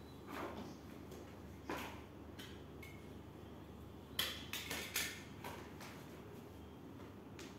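Sharp clacks and taps of thin PVC vinyl flooring planks being handled, bent and lifted on a floor, with a quick cluster of them about four to five seconds in.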